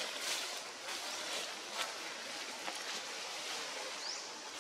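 Steady outdoor background hiss, with a few faint clicks and a short high rising chirp about four seconds in.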